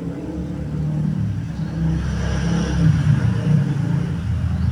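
Motorcycle engine running, growing louder about a second in.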